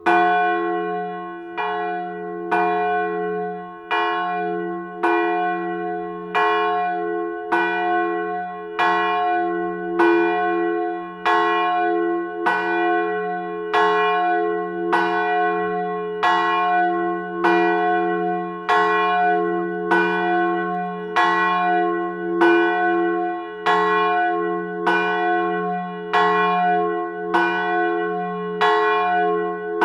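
Church bell tolling, struck about once a second, each stroke ringing on into the next.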